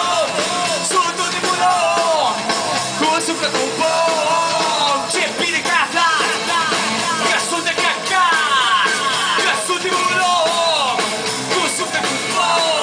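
Live rock band playing, a man singing lead over drums, bass guitar and keyboard, heard from among the audience.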